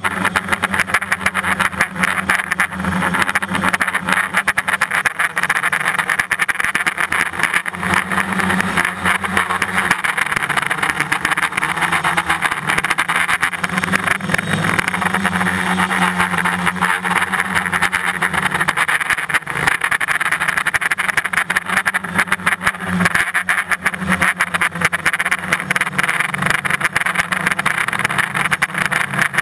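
Small multirotor drone's electric motors and propellers buzzing steadily, heard up close from the camera on the airframe, the hum wavering slightly in pitch as the drone turns and holds position.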